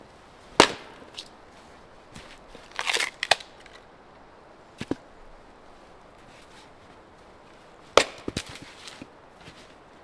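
Firewood being split with an axe on a chopping block: a handful of sharp wooden cracks, the loudest just after the start and about eight seconds in, the later one followed by a few lighter knocks of wood.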